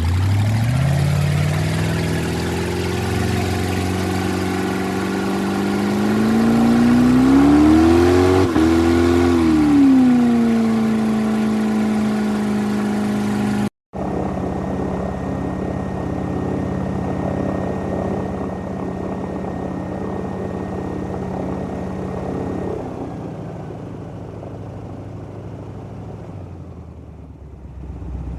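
Airboat engine and propeller running: the pitch climbs as it spins up, revs to a peak about eight seconds in, then settles to a steady run. After a brief cut, a second airboat runs steadily and then eases off, quieter near the end.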